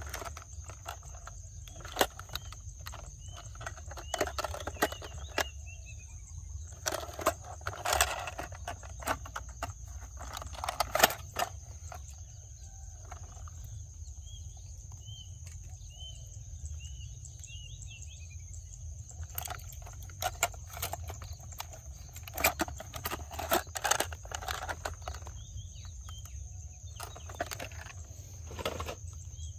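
Light clicks, knocks and clatter of plastic toy cars being handled, in bursts, with birds chirping in short runs in the background.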